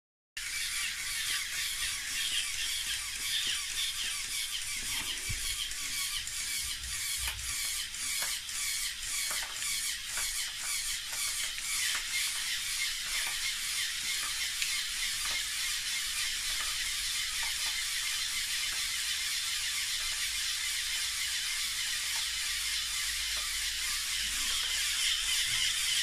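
LEGO Power Functions motors driving pneumatic pumps: a steady whir with a hiss over it. For several seconds in the first half there is a regular clicking of pump strokes, about two a second.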